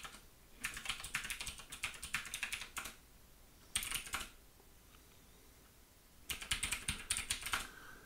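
Computer keyboard typing in three quick runs of keystrokes with short pauses between: a longer run, a brief one about four seconds in, and another near the end.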